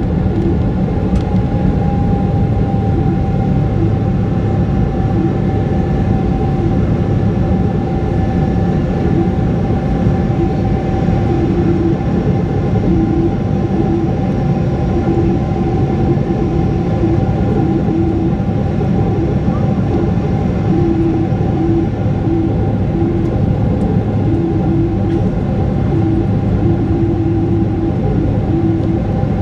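Cabin noise of a Boeing 777-300ER climbing after takeoff, heard beside the wing: the GE90-115B engines give a steady, loud rumble with a couple of steady hums above it.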